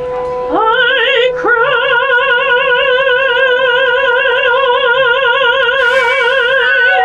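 A woman's operatic voice swoops up twice, about half a second and a second and a half in, then holds one long note with a wide, even vibrato. A plain steady note without vibrato sounds under it at the start.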